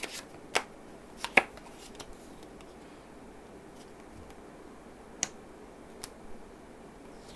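Playing cards being handled in a card-change move: a few short sharp snaps and taps of cards, two close together about a second and a half in and two more about five and six seconds in, over faint room hiss.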